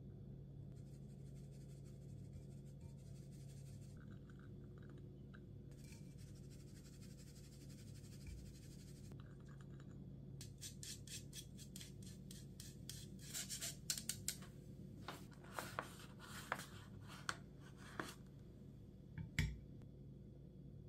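Flour sifted through a fine-mesh metal sieve into a glass bowl: a faint soft rustle at first, then from about halfway a run of light clicks and taps as the sieve is knocked and shaken. One louder knock comes near the end.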